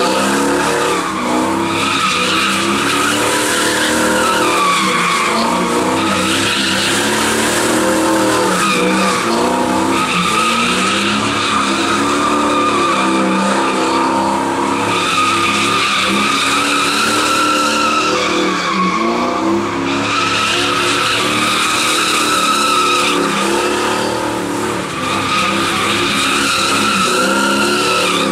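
A car doing donuts: its engine is held at high revs, rising and falling, while the rear tyres squeal without a break as they spin and slide.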